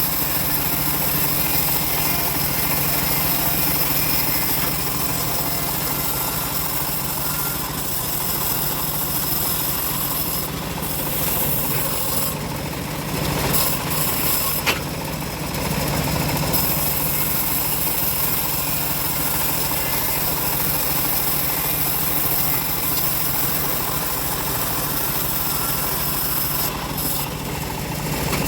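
Homemade bandsaw sawmill running steadily with a constant engine-like hum and high hiss. The hiss briefly drops off a few times, around the middle and near the end.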